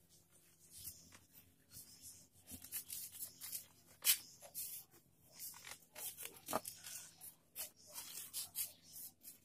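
Whiteboard eraser rubbing across the board in short, irregular strokes, a faint scratchy swishing, with one sharp knock about four seconds in.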